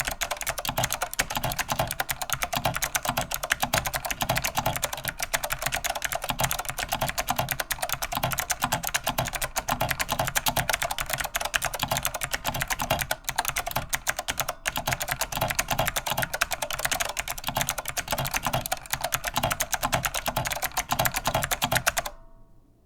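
Fast, continuous typing on a Jameco JE1015 (Monterey K2AX) mechanical keyboard with clicky Alps SKCM Blue switches, a metal backplate and double-shot keycaps: a dense run of key clicks that stops abruptly near the end.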